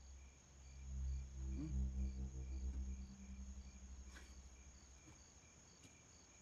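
Crickets chirping in a steady, even rhythm over a continuous high insect trill. A low drone swells in about a second in and fades out over the next few seconds.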